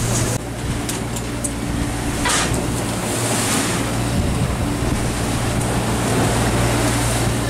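Wind and a rough sea washing around a fishing boat, over the steady low hum of the boat's engine.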